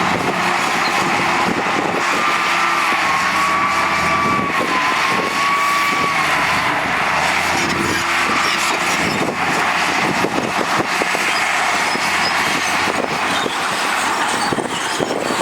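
Heavy diesel construction machinery running steadily, with a wavering whine from about two seconds in for several seconds and rattling clatter later on.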